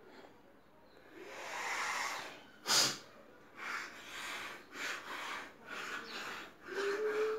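A person breathing hard and snorting, with one loud, sharp snort about three seconds in, then quick breaths about twice a second and a short hummed groan near the end.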